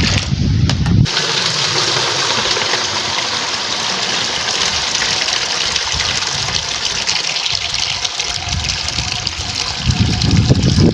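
Water pouring in a steady rushing stream onto beans being washed, flooding them so the loosened skins float off. It starts about a second in and eases off near the end.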